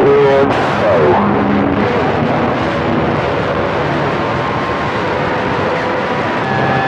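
CB radio receiver hiss and static on an open channel, with faint whistling carrier tones and short sliding squeals from other stations bleeding over.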